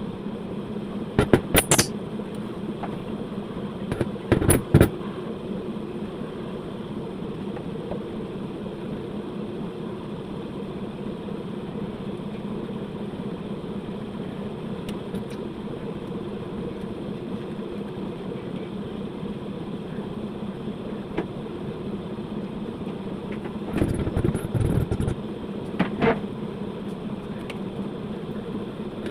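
A steady mechanical hum runs throughout, broken by a few sharp clicks and knocks about a second in, around four seconds in, and again near the end.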